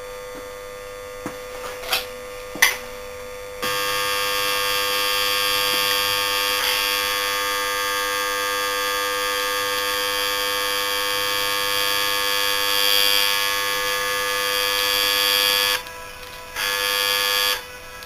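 Electric motor of a Bulkon refrigerant compressor buzzing loudly. The motor is being run with no oil and its connecting rod has just broken. The buzz switches on about three and a half seconds in, cuts out briefly near the end, and comes back for about a second; before it there is only a low hum and a couple of clicks.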